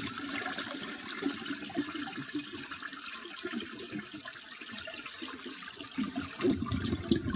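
A toilet flushing, a steady rush of water.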